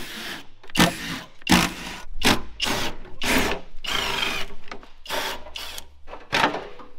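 Power drill running in short, irregular bursts, about ten of them, as bolts are backed out to take the truck's front fender off.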